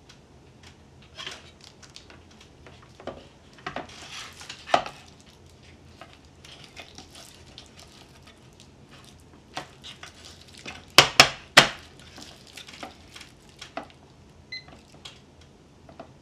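Handling noise as a fish finder unit and its power cables are moved around on a wooden table: scattered clicks and knocks with some rustling. About two-thirds of the way through come three sharp knocks close together, the loudest sounds.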